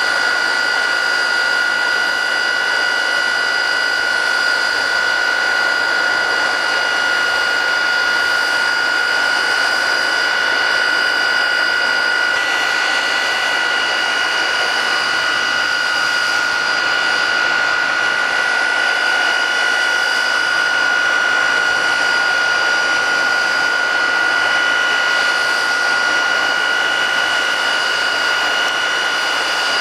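Airplane jet engine mounted on a flat-bed truck running steadily at high power, blasting its exhaust to melt packed snow. A loud rushing roar with a strong, steady high-pitched whine on top.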